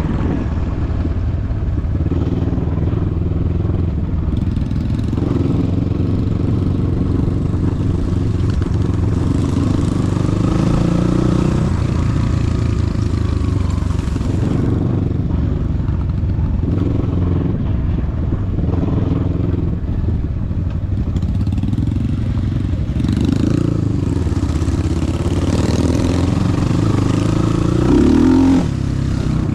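A vehicle engine running steadily while under way, its note rising and falling a little, with a louder swell near the end.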